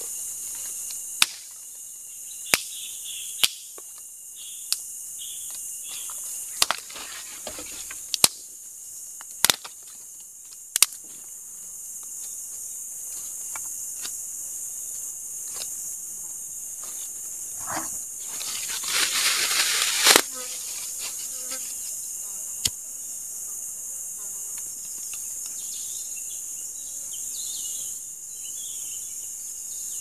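Steady high-pitched chorus of forest insects, over which come sharp wooden knocks, about one every second or so through the first eleven seconds and a couple later, as a blade chops stick stakes. About two-thirds of the way through there is a short burst of rustling in the leaf litter.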